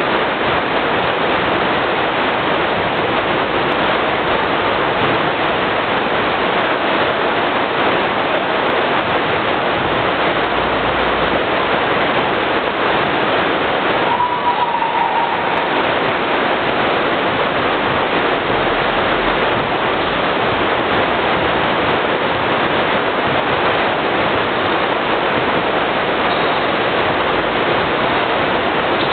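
A steady, loud hiss of noise, with a short high tone that bends slightly down about fourteen seconds in.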